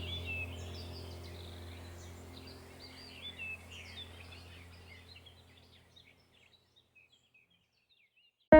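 Birds chirping over a steady low hum, the whole fading out gradually to silence over about six seconds. A plucked guitar tune starts right at the very end.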